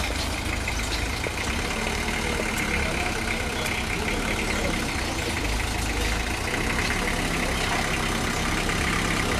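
Engine of a white minibus van idling steadily as it creeps along at walking pace.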